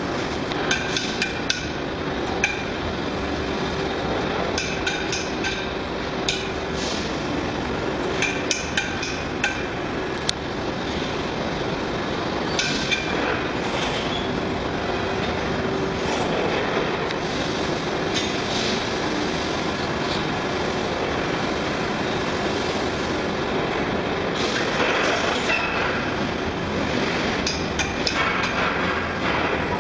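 Cart-style magnetic sweeper rolling across a factory floor: a steady rolling rattle, with many sharp metallic clicks as nails, bolts and metal scraps snap up onto the magnet, mostly in the first ten seconds and again around 25 seconds in.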